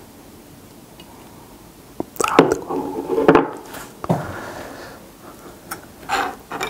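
A wooden spoon scrapes melted cheese out of a plastic container, and the gooey cheese falls into a bowl of broth. The sounds come in a cluster from about two seconds in, with a few more near the end.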